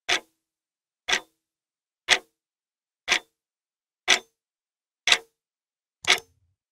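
Clock ticking once a second: seven sharp, evenly spaced ticks with silence between them.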